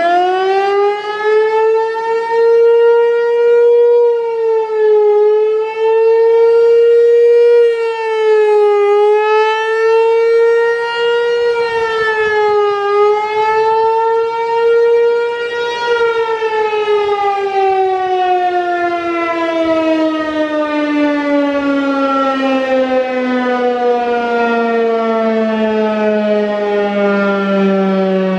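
ASC Tempest 128 electromechanical outdoor warning siren sounding its fire signal: a single loud tone at full pitch that dips briefly three times, then winds down slowly, the pitch falling steadily through the second half.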